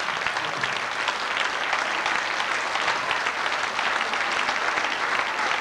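Audience applauding: a steady wash of many people clapping.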